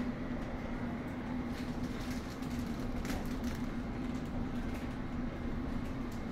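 London Underground S7 stock train (Bombardier Movia) running at steady speed, heard from inside the carriage. A steady traction hum sits over wheel-on-rail rumble, with a few sharp clicks from the rails.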